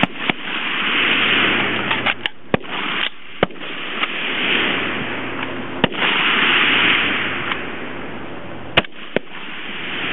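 Rifle fire from a highpower firing line of mostly AR-15s in rapid fire: about seven sharp, short shots at uneven intervals, some close together. Under them runs a loud rushing noise that swells and fades.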